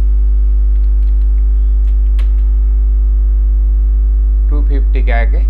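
Loud, steady electrical mains hum with a row of higher overtones, unchanging throughout. A couple of faint clicks come about two seconds in.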